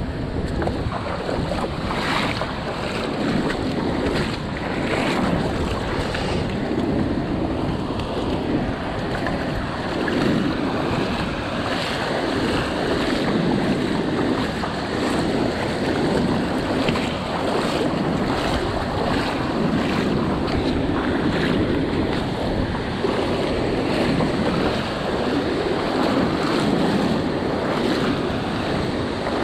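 Wind buffeting the action-camera microphone over the steady wash of breaking surf, with irregular splashing of shallow water over rocks.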